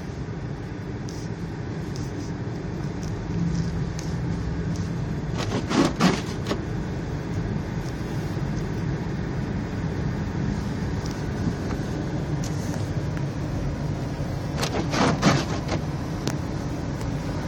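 A car driving, with a steady low rumble of engine and road noise. Two brief clusters of sharp clicks or knocks come through, about six seconds in and again near fifteen seconds.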